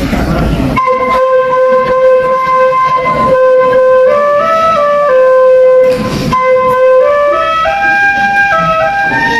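Sundanese bamboo suling flute playing a slow melody: it comes in about a second in on a long held low note, steps up and back down, breaks briefly for a breath partway through, then climbs higher in short steps.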